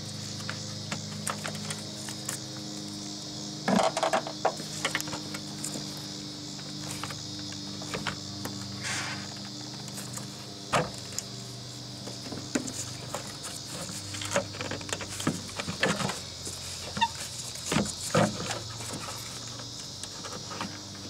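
Scattered clicks and knocks of a hose clamp and hoses being worked loose and the 2002 Saturn SL2's plastic coolant reservoir being handled and lifted. Under them runs a steady high chorus of crickets.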